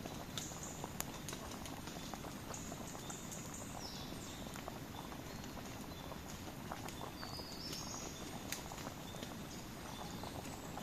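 Wood campfire crackling, with scattered small snaps and a couple of sharper pops, over a steady low rush. High bird chirps come in faintly a few times in the background.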